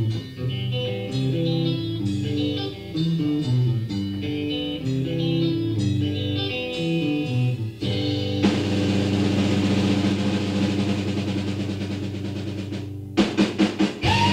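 Live pop/rock band playing: about eight seconds of electric guitar notes over bass and drums, then a held chord with a wash of cymbals. Near the end comes a quick run of about six drum hits before the band picks up again.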